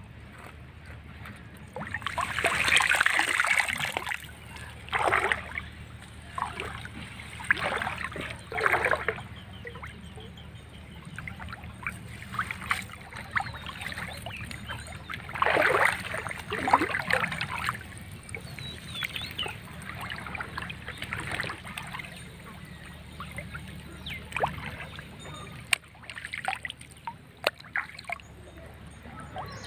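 Shallow pond water splashing and sloshing as a man wades through it and lays out a gill net, in irregular bursts. The loudest come about two seconds in and again around fifteen to seventeen seconds.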